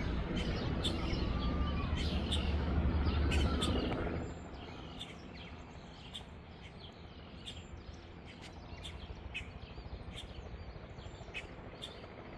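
Low rumble of a helicopter flying away out of sight, which cuts off about four seconds in, with small birds chirping throughout.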